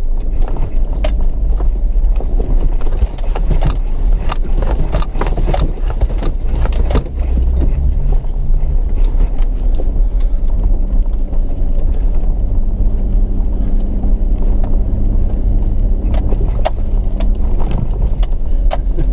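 Four-wheel-drive vehicle driving off-road over a rough sand and rock track: a steady low engine and tyre rumble with frequent rattles and clinks as it bounces over the ground.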